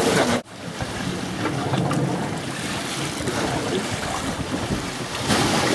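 Steady wind noise on the microphone and sea washing around a fishing boat at sea, cut by a sudden short dropout about half a second in.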